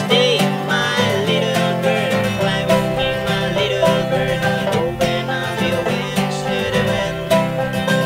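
Acoustic guitar and banjo playing a folk-bluegrass passage together, with a wavering, pitch-bending melody line over the plucked strings.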